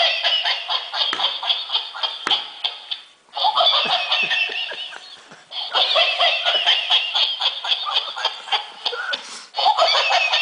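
A plush robot toy's small built-in speaker playing a recorded laughing, giggling sound in repeated phrases of two to four seconds, with brief breaks between them.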